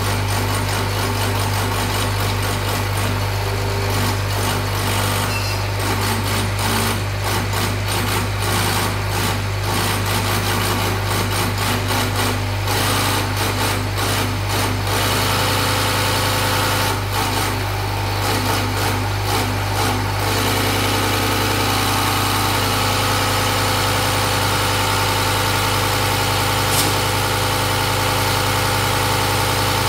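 Diesel injection-pump test bench running steadily, its motor driving an inline Bosch-type injection pump while the test nozzles spray fuel into the measuring glasses, as the pump's delivery is being calibrated. The sound flutters rapidly for about the first twenty seconds, then runs evenly, with one sharp click near the end.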